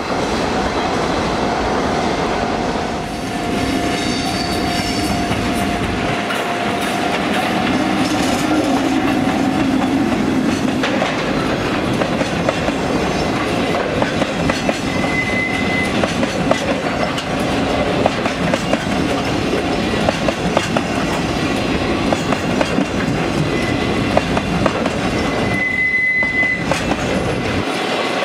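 Freight wagons of a rail-carrying engineering train (flat cars loaded with long rails) rolling past at speed, their wheels clacking steadily over the rail joints. Brief high wheel squeals come about halfway through and again near the end.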